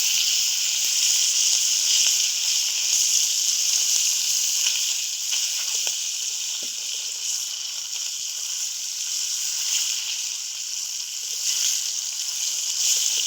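Hilsa fish heads frying in hot mustard oil: a steady sizzle with scattered small crackles.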